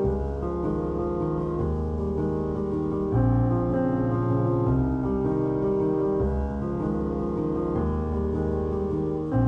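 Background music: piano or electric piano playing sustained chords over a bass line, changing chord every second or two.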